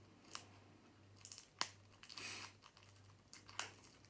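Plastic shrink-wrap crinkling and tearing as it is peeled off a deck of cards, with a few sharp crackles, the loudest about a second and a half in.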